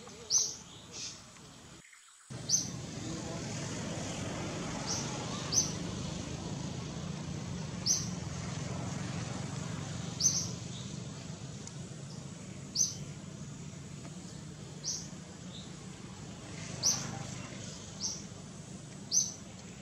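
A bird chirping in short, high calls, one every couple of seconds, over a steady low hum. The sound drops out briefly about two seconds in.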